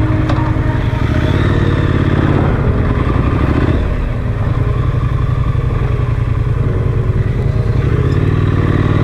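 Triumph Street Scrambler's 900 cc parallel-twin engine running while riding, its note rising and falling with the throttle, with a brief drop about four seconds in.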